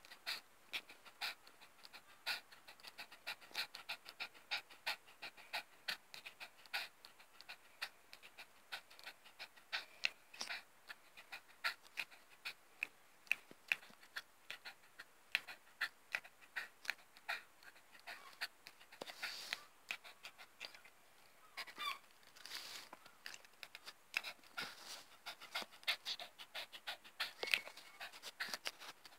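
Cavalier King Charles spaniel panting hard with her mouth open and tongue out: rapid short breaths, about three a second, the sign of a dog overheated after lying in hot sun.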